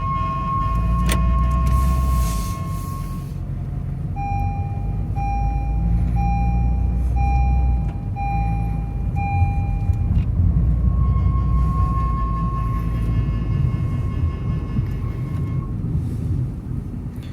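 A car's left front wheel screeching while the steering is turned to the right, over steady engine and road rumble. It starts as a held squeal, breaks into six short squeals about a second apart, then becomes a held squeal again.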